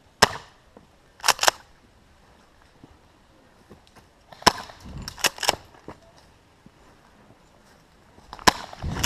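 Tokyo Marui M870 gas airsoft pump-action shotgun fired three times, about four seconds apart. Each sharp pop is followed within a second by a quick double clack of the pump being racked.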